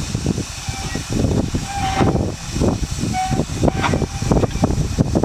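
Marshall S type steam roller's engine working hard in a rapid, uneven run of exhaust chuffs as it is driven while stuck in the ditch, which the crew think only digs it further into the hole. A couple of short squeaky tones sound over it.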